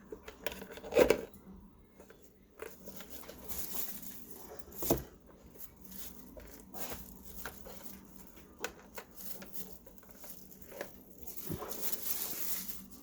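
Hands working on coffee maker parts: scattered clicks and knocks of plastic and metal pieces being handled and fitted, with short stretches of rustling. The loudest knocks come about a second in and near the middle.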